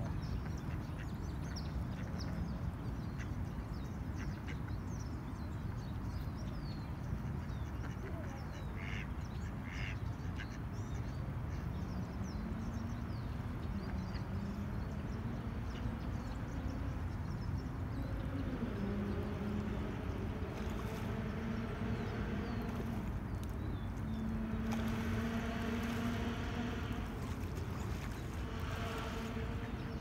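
Mallards quacking in short bouts, mostly in the second half, over small birds chirping and a steady low rumble of distant traffic. A droning engine sound rises in pitch about midway and holds until near the end.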